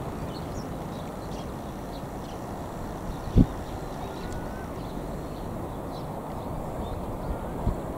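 Outdoor ambience: a steady low rumble with faint bird chirps, broken by a sharp low thump about three and a half seconds in and a smaller one near the end.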